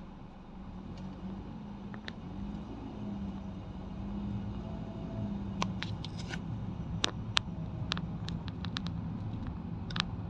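Car driving slowly: a steady engine hum over low road rumble, with a scatter of sharp clicks from about halfway in.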